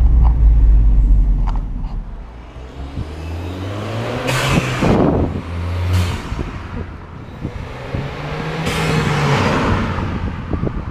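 Ford Fiesta ST's turbocharged 1.6-litre four-cylinder engine fitted with an aftermarket intake, first a deep rumble from inside the cabin, then running past the listener outside. Loud bursts of rushing hiss come about four seconds in and again near nine seconds.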